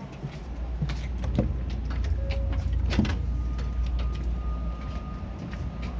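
Electric train standing at the platform: a steady low rumble with scattered clicks and knocks, and two short steady tones around the middle, the second higher and longer.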